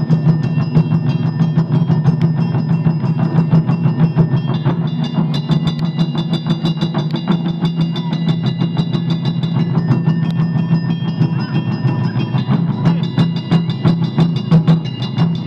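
A taiko ensemble drumming: barrel-shaped taiko drums on stands struck with wooden bachi sticks in a dense, fast rhythm, with steady high ringing tones over the drums.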